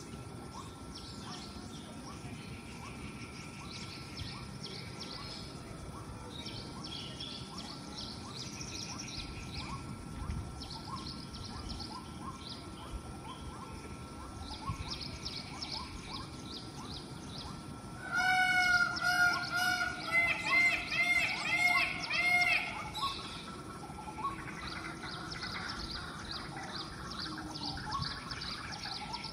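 Small birds chirping and twittering throughout. About two-thirds of the way in, an Indian peacock gives a loud run of about nine short, sharp calls over some five seconds.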